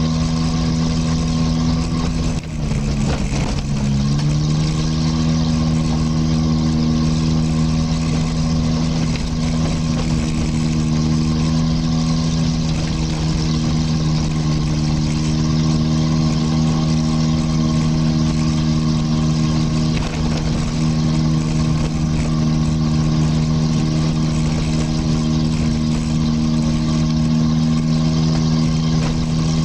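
Vehicle engine running steadily under load as it climbs a gravel track, heard from on board. About three seconds in its note drops briefly and then comes back up to the same steady pitch.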